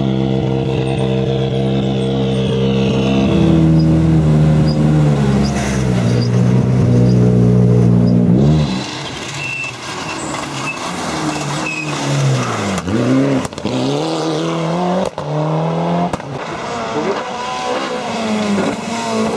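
MINI WRC rally car's engine running close by with a steady, held note that drops in pitch a few seconds in. After a cut about eight seconds in, a Mitsubishi Lancer Evolution rally car's engine revs up through its gears, repeated rising notes broken by gear changes, and near the end a Ford Escort Mk2 rally car's engine rises as it approaches.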